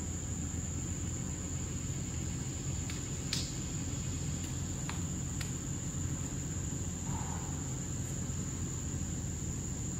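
Insects, crickets or similar, keep up a steady high-pitched drone, with a low steady hum underneath. A few faint clicks come in the middle.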